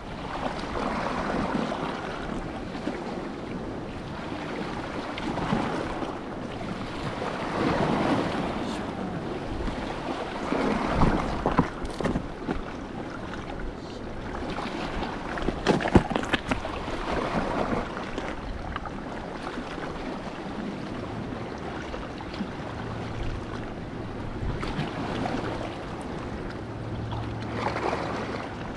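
Sea waves washing in, swelling and fading every few seconds, with wind on the microphone and a couple of sharp knocks midway.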